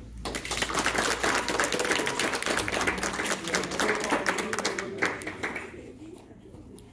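Audience applauding, a dense clapping that starts at once and dies away about six seconds in.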